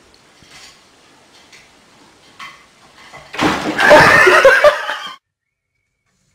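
A person laughing hard in a loud burst about three and a half seconds in, cut off abruptly after under two seconds. Faint small knocks come before it, as a cat steps along the backs of wooden chairs.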